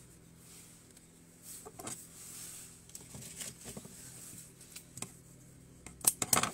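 Foliage and flower stems being handled on a workbench: light rustling and tapping, with a quick run of sharp clicks near the end, over a faint steady hum.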